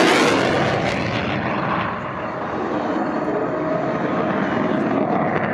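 Jet roar of a Thunderbirds F-16 fighter passing, loudest at the start and dying down over the first two seconds into a steady distant rumble.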